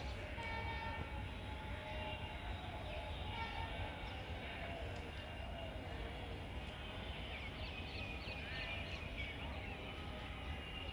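Low, steady rumble of a distant train, with birds calling in short high chirps that come thickest near the end.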